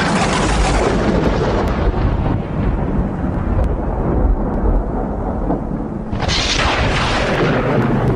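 Loud, deep rumbling roar with a rushing hiss that fades over the first couple of seconds, then a second rushing surge about six seconds in.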